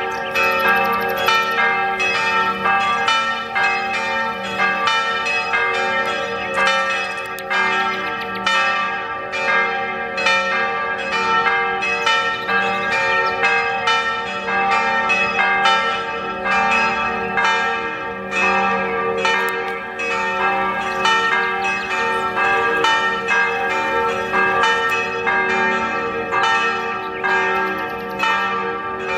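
Church bells ringing in a steady run of strikes, about two a second, each bell's tone ringing on and overlapping the next.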